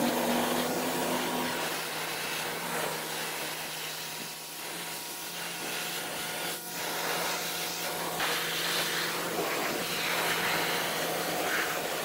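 Greenworks electric pressure washer running, its motor and pump humming steadily under the hiss of the water jet from the flat-spray nozzle.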